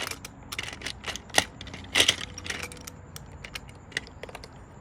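Small hard toy pieces clicking and clattering, a scattered run of sharp taps with the loudest about two seconds in: toy train cars and cargo pieces knocking on the track.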